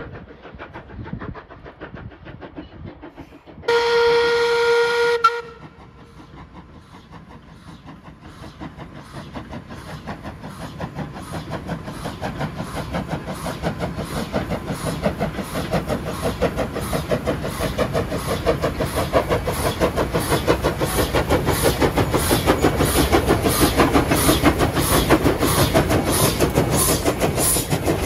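NM25, a former Commonwealth Railways NM class 4-8-0 steam locomotive, gives one long blast on its steam whistle of about a second and a half, about four seconds in. Then its exhaust beats grow steadily louder as it draws near and passes working under steam, and the carriages roll by at the end.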